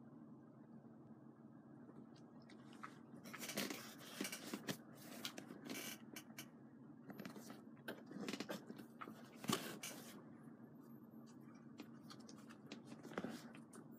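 Newborn kittens stirring on towels: faint scratchy rustling and short noisy bursts, starting about three seconds in, over a low steady room hum.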